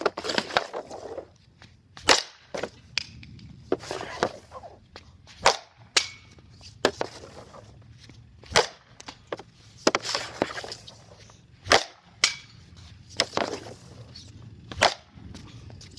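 Ice hockey slap shots off a plastic shooting pad: a composite Bauer Ag5nt stick cracking into the pad and puck again and again, a loud crack every two seconds or so, with shorter knocks and scrapes in between.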